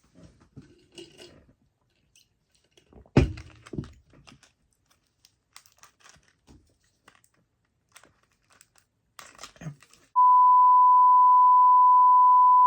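A steady 1 kHz censor bleep lasting about two and a half seconds near the end, the loudest sound here. Before it come small clicks and rustles of snack wrappers being handled, and a single sharp knock about three seconds in.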